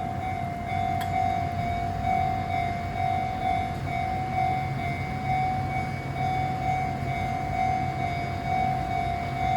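Chu-Kuang Express train hauled by an electric locomotive with a diesel locomotive coupled on: a steady high whine over a continuous low rumble.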